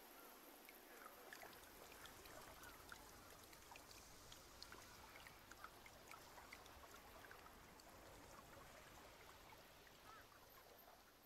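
Faint steady rain, with scattered drops ticking and a few short faint chirps among them; it eases a little near the end.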